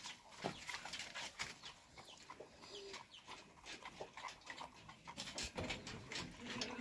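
Farmyard chickens clucking faintly in scattered short calls, with a few small knocks among them.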